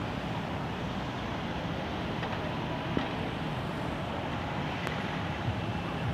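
Steady city street traffic noise: cars and a bus passing close by.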